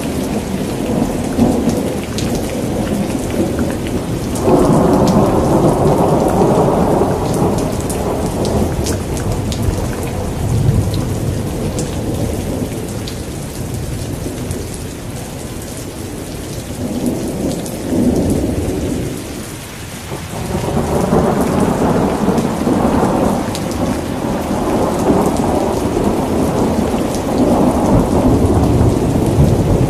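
Thunderstorm: steady heavy rain with rolling thunder that swells up about four seconds in, again past the middle, and rumbles on through the last third.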